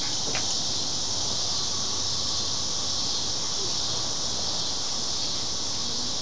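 Steady, high-pitched chorus of insects calling without a break, with one brief click about half a second in.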